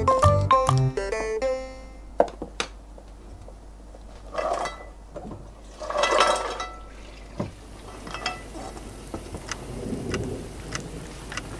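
Background music ends about two seconds in, then kitchen clatter: a few clicks and knocks of a pot being handled, and two short bursts of tap water running into the pot as it is filled.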